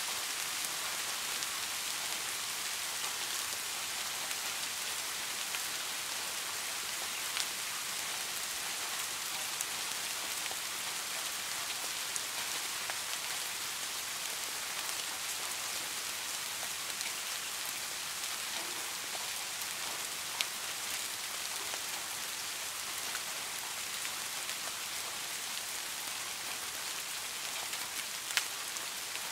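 Steady rain falling: an even hiss of many drops, with a few louder single drops ticking out now and then.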